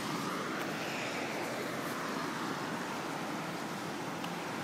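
Steady street traffic noise, a continuous hiss of tyres on a wet road, swelling slightly as a car passes about a second in.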